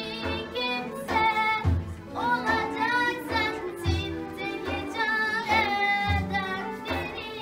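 A singer performing a Turkish folk song, the voice wavering and ornamented, over instrumental backing with a regular low drum beat.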